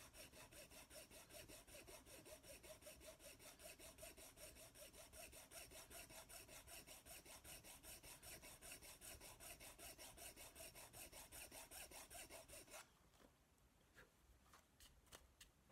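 Faint, steady back-and-forth rasping of a needle file on a model locomotive's metal chassis, several strokes a second, as the mounting lugs are filed down. The filing stops about 13 seconds in, and a few faint clicks follow.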